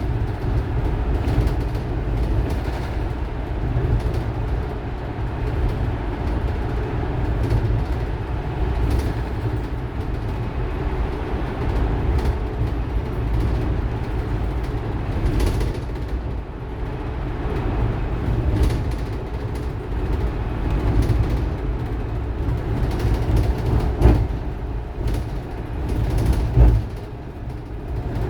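A 2018 RAC RAC-700 electric city bus running at speed, a steady low drone of traction motor and road noise that the uploader labels an abnormal motor noise. A few sharp knocks stand out near the end.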